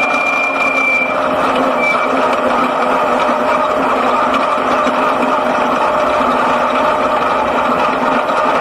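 Six-cylinder speedway sedan engine running hard under racing load, heard from inside the cockpit as a dense, steady drone with little change in pitch. A thin high-pitched tone sounds over it in the first second and briefly again about two seconds in.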